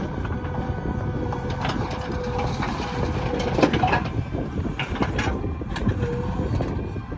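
Heavy machinery running with a steady low rumble, broken by scattered sharp clanks and knocks.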